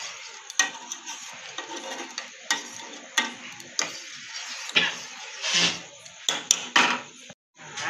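A metal spoon stirring sugar into boiling milk tea in a stainless steel saucepan, clinking sharply against the pan several times over a steady hiss.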